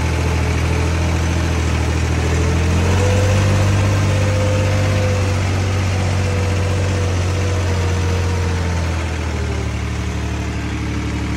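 New Holland 3630 tractor's diesel engine running steadily under load while puddling a flooded paddy field on monster tyres, with mud and water churning around the tyres. The engine note rises a little about three seconds in and eases slightly near the end.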